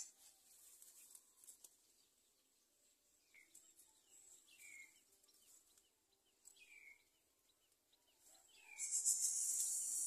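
Faint short chirps sliding downward, a few seconds apart. Then, near the end, a loud, rapid, high rasping hiss: the begging of greater coucal nestlings as a parent arrives at the nest.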